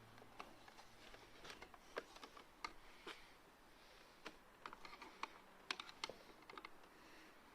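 Faint, irregular light clicks and taps from small plastic parts of a car door mirror being handled and worked on.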